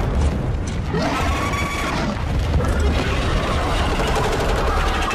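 Film sound effects of an ice dragon's breath blast striking an ice wall: a loud, continuous rumbling blast with crackling, and a wavering pitched cry about a second in.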